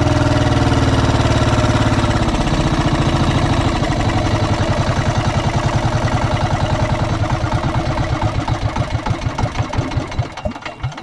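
Small boat engine running, throttled back about two seconds in; its beats then slow and grow uneven, and it dies down near the end as the boat comes to a stop at the fishing spot.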